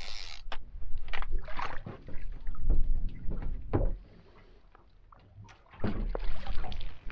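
Wind gusting on the microphone, with irregular knocks and clicks as the rod, reel and line are handled while a small ling is wound up to the side of a small fishing boat. Quieter for a couple of seconds past the middle.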